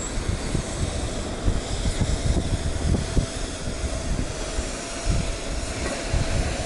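Wind buffeting the microphone and road rumble while riding a bicycle, gusty and uneven, with a faint steady whine underneath.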